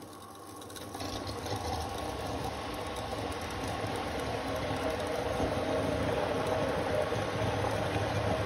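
Electric submersible water pump running with a steady mechanical hum, pumping floodwater out of a pit through its hose; the hum grows louder about a second in.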